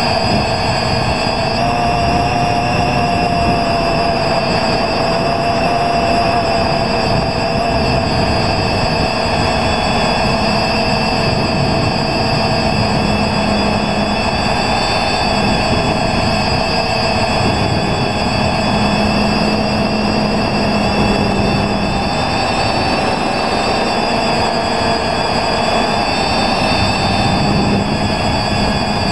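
X580 quadcopter's electric motors and propellers running in flight, heard from the camera mounted on the craft: a steady whine made of several tones that drift slightly in pitch as the throttle changes, over rushing wind on the microphone.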